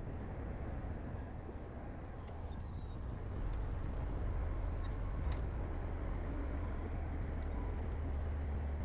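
Heavy diesel construction machinery running, a steady low engine rumble that eases slightly and picks up again about three and a half seconds in.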